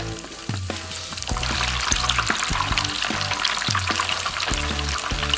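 A whole panko-breaded Big Mac deep-frying in a small pot of hot oil: steady bubbling and crackling sizzle that grows louder about a second in. Background music with a bass line plays underneath.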